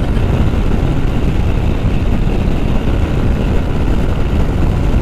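Steady rush and rumble of wind and road noise at about 108 km/h on a motorcycle, picked up by a lavalier mic inside a closed-visor helmet.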